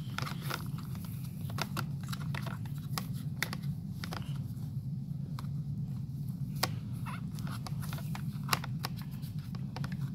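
Scattered small clicks and taps of plastic parts being handled as a rubber drive belt is worked onto the motor shaft of a Bissell Powerforce Compact vacuum, over a steady low hum.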